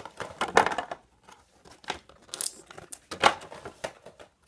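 Clear plastic toy packaging crinkling as it is handled, in irregular bursts, loudest near the start and about three seconds in.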